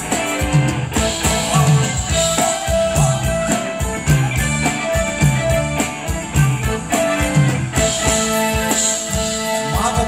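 Live band playing Thai ramwong dance music: electric guitars, bass guitar and drum kit with a steady repeating beat and a sustained melody line.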